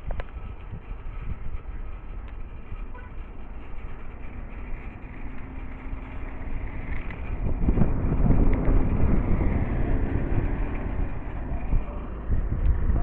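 Wind noise buffeting the microphone with tyres on a dirt road while riding a bicycle, a steady low rumble that grows louder about eight seconds in for a couple of seconds.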